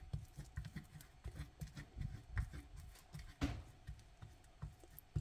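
A metal fork mashing cooked red beans against a plate: faint, irregular taps and soft thuds of the tines pressing down, a couple a second, the loudest about three and a half seconds in.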